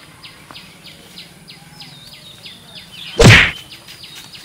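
Short high chirps falling in pitch repeat about three times a second, with a single loud whoosh a little over three seconds in that fades within a third of a second.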